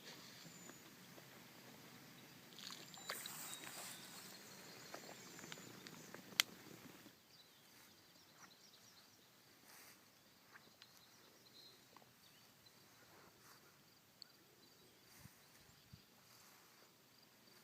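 Near silence: faint outdoor background, a little louder for the first seven seconds, with a few soft clicks and one sharp tick about six seconds in.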